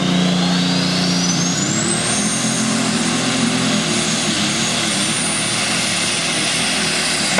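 Super stock pulling tractor's turbocharged diesel engine at full power while pulling the sled, its turbocharger whine climbing over the first two seconds to a high steady scream. Right at the end the whine begins to fall as the power comes off.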